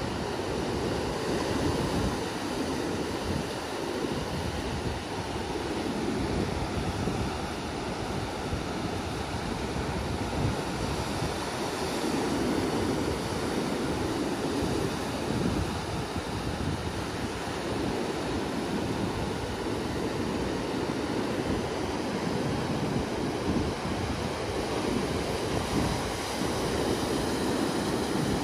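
Atlantic surf breaking and washing up a sandy beach: a steady rush that swells and eases every few seconds, with some wind buffeting the microphone.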